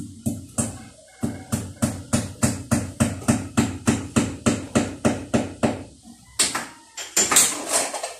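Hammer blows against the kitchen wall in a steady run of about three to four strikes a second, then a louder, rougher burst of noise near the end.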